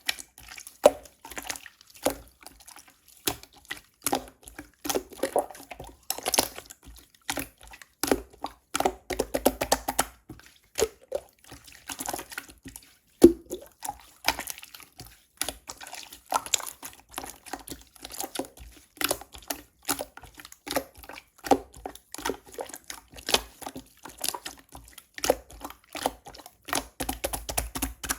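Slime being squished and poked by hand, making irregular sticky clicks and small wet pops.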